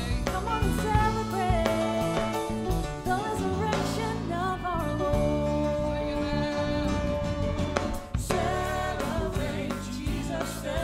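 Live gospel worship music: a singer bending into and holding long notes over a band with bass and drums.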